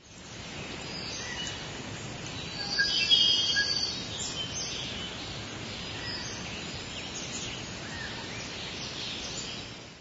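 Outdoor ambience: a steady hiss with birds chirping, their song busiest about three seconds in.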